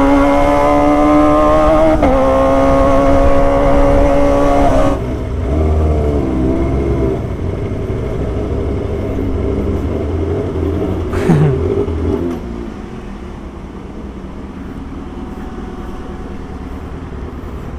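Kawasaki Ninja sport bike's engine from the rider's seat, pulling up in pitch with one gear change about two seconds in. About five seconds in the throttle shuts and the bike slows, running low and uneven, then settles to a quieter steady running for the last few seconds.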